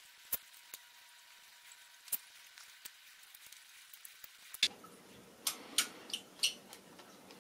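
Small metal clicks and taps of a hex driver bit and driver being fumbled onto the AR-15's pistol-grip screw while it is started by hand without a magnetic tool. The clicks are sparse at first, then come in a quicker, louder cluster near the end over a faint rustle of handling.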